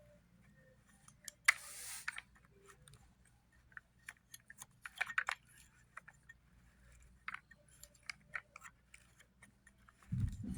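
Scattered small clicks and taps of plastic vacuum-cleaner parts being handled, with a brief rustle about one and a half seconds in.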